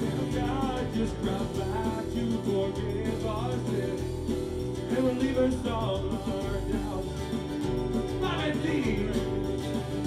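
Live band playing amplified electric and acoustic guitars over bass, with a melody line on top that slides and bends in pitch.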